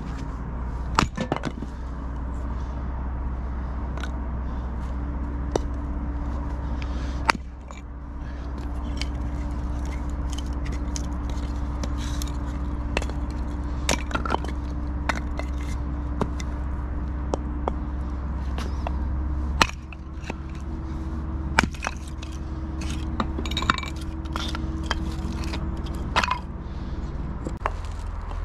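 Hatchet splitting kindling on a wooden chopping block: sharp chops and cracks of wood splitting apart, irregularly spaced and sometimes in quick clusters, over a steady low hum.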